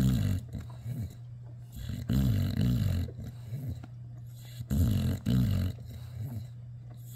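English bulldog chewing on a rope toy, making low grunting noises with its breath, in bursts about every two and a half seconds.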